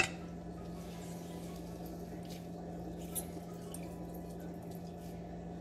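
Rice water dripping and trickling from a hand-squeezed cloth strainer bag into a glass measuring cup, with a few faint ticks over a steady low hum.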